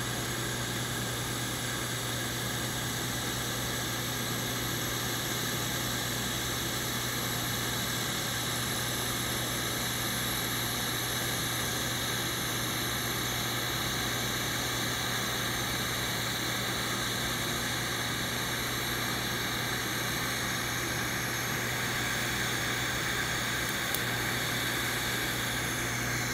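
TIG (GTAW) arc burning on stainless steel pipe during tack welding: a steady hiss with a low hum underneath.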